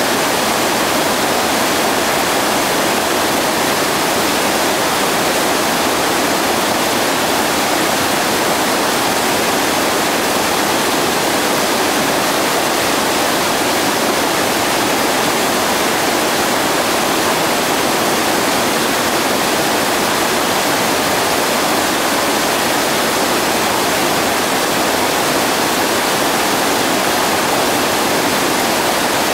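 Whitewater rapid rushing loud and steady: a continuous, unchanging roar of churning water.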